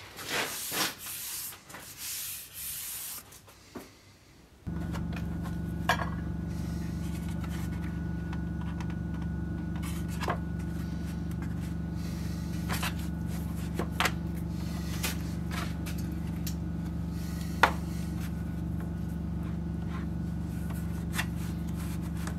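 A hand brushes and rubs over a fur hide in a few irregular strokes. Then, about four and a half seconds in, a steady low hum starts suddenly and carries on, with a few light ticks and taps from handling on the workbench.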